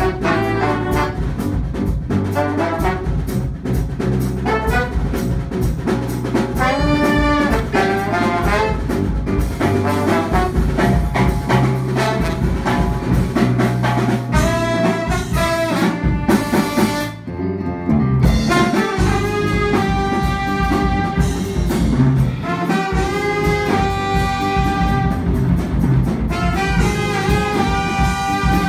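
Small jazz combo playing live: trombone and saxophones playing the melody lines together over electric guitar and drum kit. The band stops for a moment a little past the middle, then comes back in.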